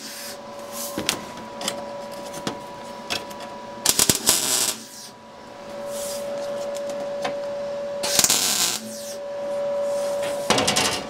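MIG welder laying tack welds on thin steel sheet: three short bursts of welding, each about half a second, a few seconds apart.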